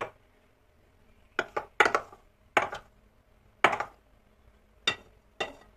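A small ceramic cup clinking against the rim and sides of a glass mixing bowl about eight times at uneven intervals, a short ringing knock each time, with a quick cluster of clinks between about one and a half and two seconds in.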